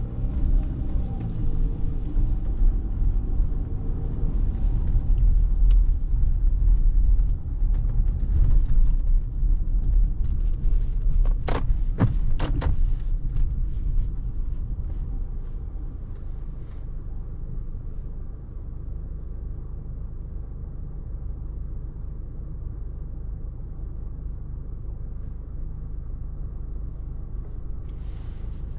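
Car cabin noise while driving on a wet street: engine and tyre rumble, with a few sharp clicks or knocks about twelve seconds in. In the second half it settles to a quieter, steady hum.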